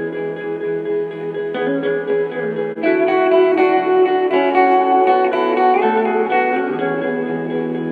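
Guitar played through effects and a looper: several overlapping layers of held, ringing notes, with a louder new layer coming in about three seconds in. The recording sounds dull and cut off in the highs.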